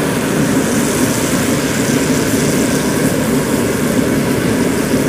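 Engine of a Zoomlion FH100 Speedster rice combine harvester running steadily with a strong, dense drone.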